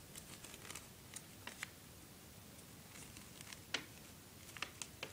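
Paper being folded and creased by hand: faint, scattered crinkles and light taps, the sharpest a little before four seconds in.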